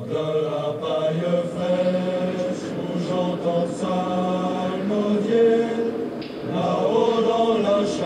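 Background music: a choir singing a slow chant in long, held notes.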